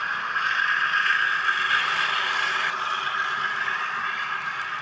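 Model railway diesel locomotive with a DCC sound decoder running past, its engine sound played through the onboard speaker together with the running noise of the train on the track. It is louder in the first half and eases off slightly about three seconds in.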